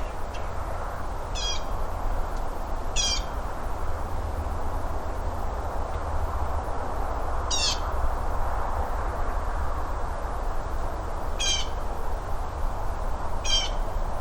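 A woodpecker calling five times, each call a short rolling, slightly falling rattle, spaced a few seconds apart over a steady background rush.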